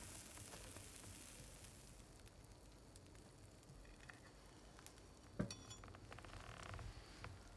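Faint sizzling of a hot grilled steak, fading as it is moved from the pan onto a wooden board, with a single sharp metallic clink a little over five seconds in.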